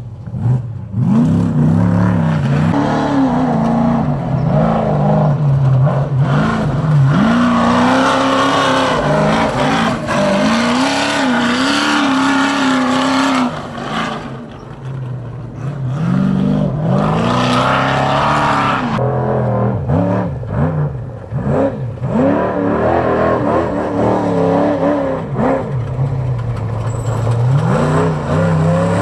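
Off-road trophy truck engines revving hard and easing off, again and again, as the trucks race past one after another. The engine pitch rises and falls with the throttle, with a short lull about halfway through before the next truck comes through.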